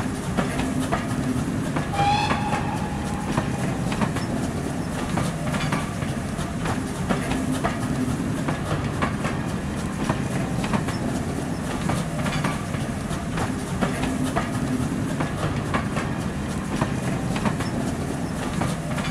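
Passenger train passing close by: a steady running rumble with the wheels clicking regularly over the rail joints, and a brief high squeal about two seconds in.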